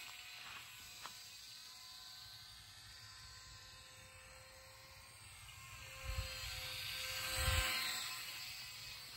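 Micro RC biplane's small electric motor and propeller buzzing with a steady whine as it flies, quieter in the middle and swelling as it passes close about six to eight seconds in. Two brief low rumbles come near the close pass.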